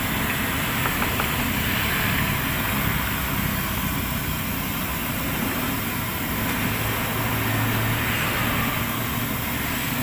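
Battered banana fritters sizzling steadily in hot oil in a wok, with a steady low rumble underneath.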